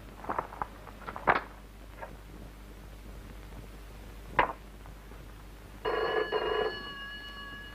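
A telephone bell rings once, a burst of ringing about a second long, starting about six seconds in, after a few faint knocks and clicks.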